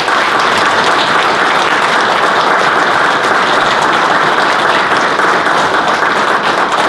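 A room full of people applauding: a loud, steady round of applause.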